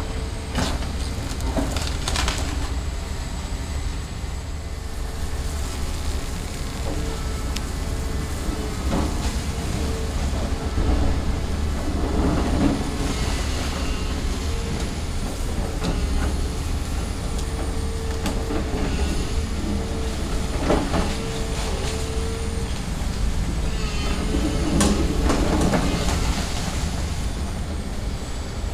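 Volvo excavator's diesel engine running steadily under load while its bucket rips into a brick tenement wall, with masonry and rubble crashing down several times.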